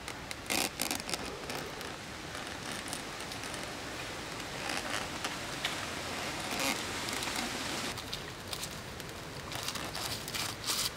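Pork leg roasting on a spit over wood embers: a steady sizzling hiss with scattered crackles and pops from the coals.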